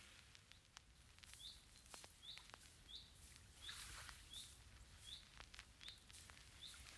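Near silence with faint bird chirps: short, high, downward notes repeating about twice a second from about a second and a half in.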